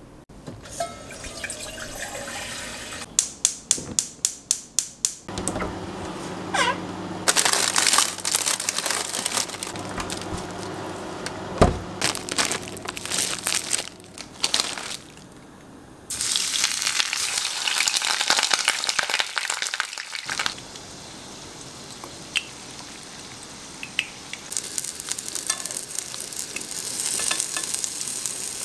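A run of kitchen sounds: a quick series of about eight clicks a few seconds in, stretches of rushing noise like a running tap, and, near the end, a breaded frozen pork cutlet sizzling in shallow oil in a frying pan.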